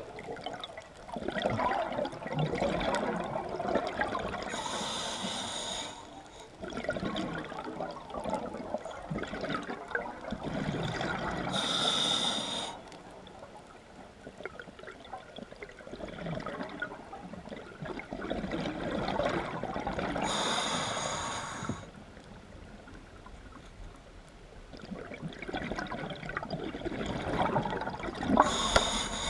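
Scuba diver breathing through a regulator underwater: four breaths about eight seconds apart, each a short hiss followed by a few seconds of bubbling.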